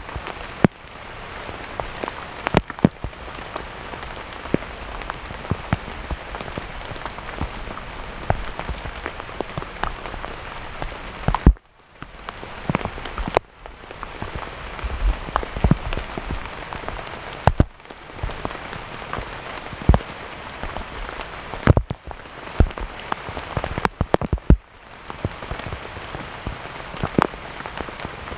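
Steady rain falling, with many sharp individual drops striking close by at irregular moments.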